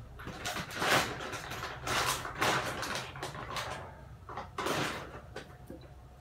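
Several short rustles and scrapes of ingredients and packaging being handled off to one side, coming about a second apart.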